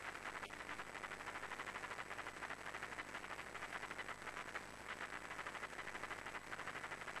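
A fast, even rattle of sharp taps, about eight a second, dipping briefly a little under five seconds in.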